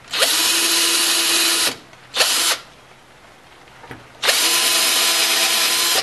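Handheld power drill with a small bit boring holes into a wood block, running at a steady whine. It runs for about a second and a half, gives a short burst, then after a pause starts a second long run about four seconds in.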